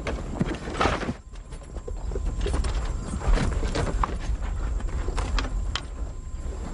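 Horses' hooves clopping irregularly on dry dirt, with scattered knocks and shuffling.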